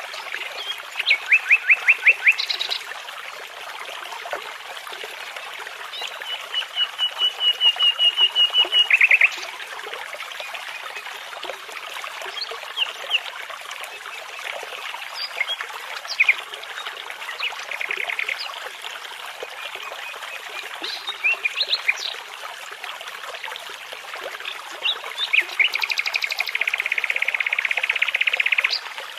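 A brook runs steadily while songbirds sing phrases of fast repeated notes and trills. The longest, loudest trills come about a quarter of the way in and again near the end.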